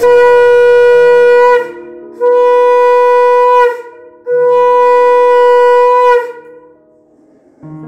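Conch shell (shankha) blown three times as a ritual call in a Hindu puja. Each blast is a loud, steady, single-pitched note of about one and a half to two seconds, the last the longest, and each dips in pitch as it ends.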